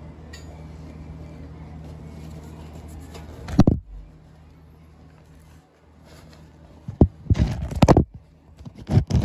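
A steady low hum, then a loud knock a little past three seconds and a cluster of clanks and knocks from about seven to nine seconds, as tools, parts or the camera are handled.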